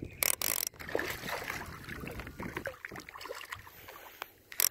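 Handling noise aboard a plastic fishing kayak: a couple of short loud rustles at the start and another near the end, with scattered small knocks and clicks against the hull in between.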